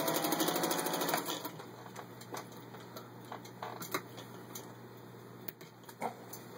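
Singer 201-2 sewing machine running slowly through six layers of denim, a motor hum with rapid needle ticking, stopping a little over a second in. Scattered clicks and small knocks follow.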